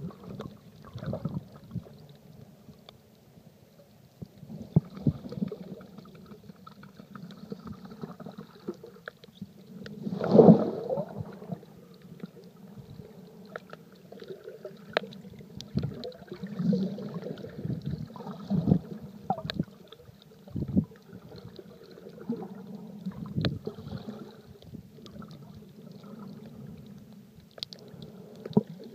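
Underwater sound picked up by a phone sealed in a waterproof case: a muffled low gurgling and sloshing of water with scattered sharp clicks, and a louder gush about ten seconds in.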